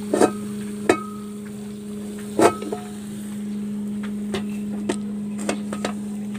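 Metal cookware clanking: a few sharp knocks as a metal lid goes onto a wok, the loudest about two and a half seconds in, followed by lighter taps. A steady low hum runs underneath.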